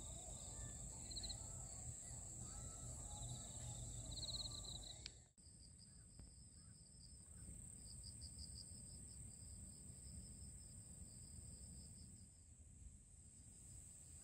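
Insects chirping: a steady high-pitched drone with rhythmic pulsing chirps beneath it, over a low rumble. About five seconds in the sound dips sharply and the chirping pattern changes.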